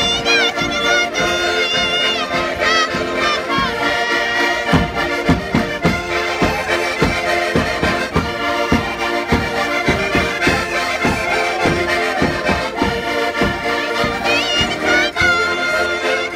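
Several diatonic button accordions (Portuguese concertinas) playing a traditional folk tune with a steady rhythmic bass beat. A woman sings along over them near the start and again near the end.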